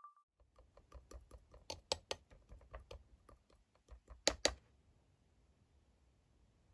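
A quick, irregular run of light clicks, several a second, ending with two louder clicks about four seconds in; then faint room tone.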